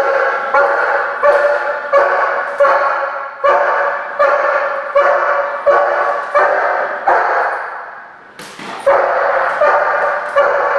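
A dog barking at a person in a steady, repeated run of barks, about one every three-quarters of a second. The barking pauses briefly near the end, then starts again.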